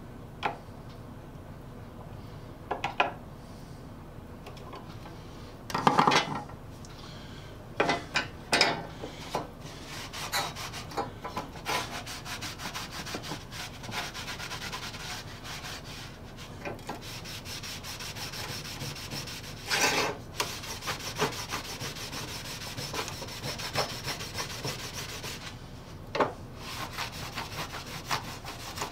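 A cloth rag rubbing paste wax onto a steel pruning-saw blade in quick scratchy strokes. A few sharp knocks and clicks come in the first ten seconds, before the steady rubbing sets in.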